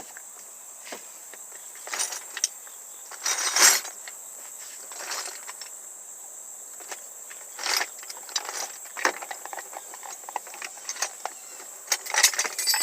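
Crickets or other insects trilling steadily in a high, thin tone, with scattered short clicks, knocks and rustles of handling.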